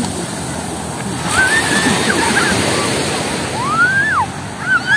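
Ocean surf washing steadily onto the beach, with a few high-pitched voices squealing or calling out over it.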